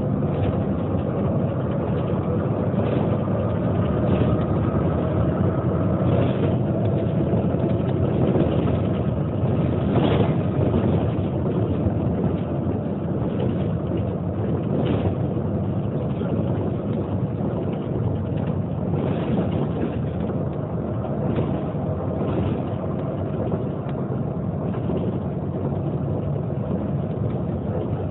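Neoplan N 4416 city bus running, a steady drone of engine and road noise with an occasional knock, the loudest about ten seconds in.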